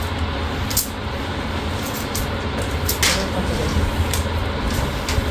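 Squeegee card rubbing and scraping over wet vinyl film on a plastic sheet, a few short strokes over a steady low hum.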